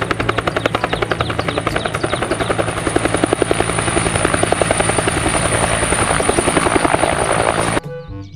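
Two-bladed Bell Huey-type helicopter hovering low. Its main rotor slaps about ten times a second over a steady high engine whine, and the sound cuts off abruptly near the end.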